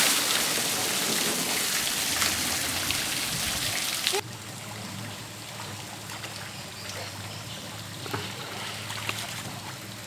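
Water cascading off a water-park play tower after its tipping bucket has emptied, splashing into the pool and dwindling. About four seconds in it cuts off abruptly to quieter trickling and lapping pool water.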